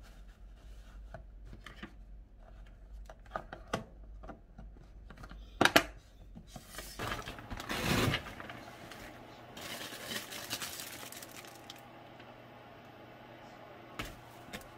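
Light taps and clicks of hands handling a plastic food container lined with kitchen paper, with a sharp double click about halfway through. Then rustling and crinkling as a foil-lined insulated delivery bag is opened and groceries are lifted out, loudest a little past halfway. A single sharp click near the end.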